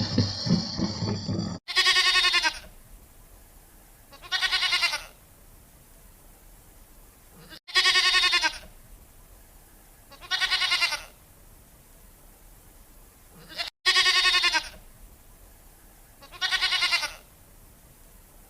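A sheep or goat bleating: two short, wavering bleats about two and a half seconds apart, the pair repeated three times. Before them, during the first second and a half, a loud rough animal sound, like a roar, cuts off abruptly.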